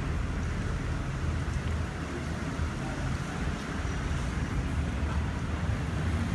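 City street ambience: a steady low rumble of traffic and urban background noise.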